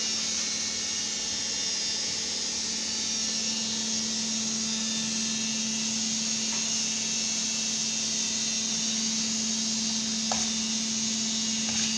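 Egg keema frying in butter and oil in a pan, a steady sizzling hiss over a constant low hum, with a faint tap about ten seconds in as a slotted spoon stirs it.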